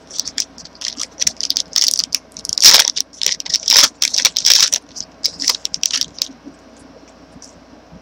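Crinkling of a trading-card pack wrapper being handled and opened, a rapid run of crackles that stops about six seconds in.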